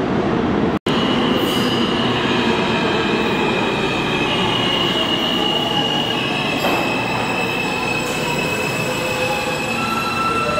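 An R160 New York City subway train pulling into the station and braking, a heavy rumble with long high-pitched wheel and brake squeals over it. The sound drops out briefly just under a second in.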